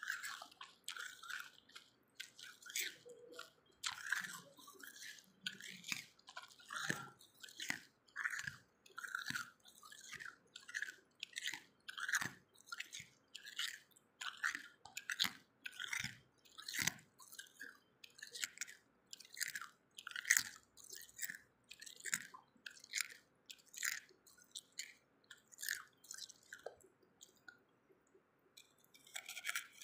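A person chewing mouthfuls of hard milky ice: a steady, regular run of crisp crunches, about one a second, with a short pause near the end.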